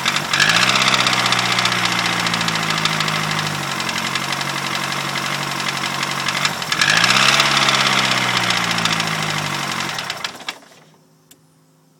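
Ford Fiesta RS Turbo's turbocharged four-cylinder engine running with a knock: the sign of a failed engine. The revs rise twice, near the start and about seven seconds in, and the engine stops about ten and a half seconds in, followed by a couple of faint ticks.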